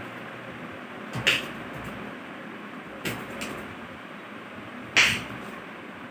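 Four short, sharp impacts from children practising karate moves on a tiled floor, the loudest about five seconds in, over a steady background hiss.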